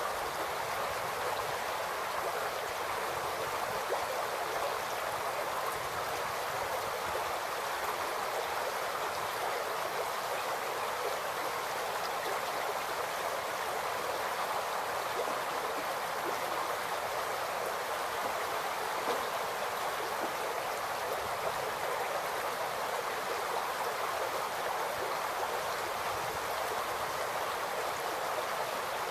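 Shallow, rocky creek babbling over stones: a steady, even rush of running water.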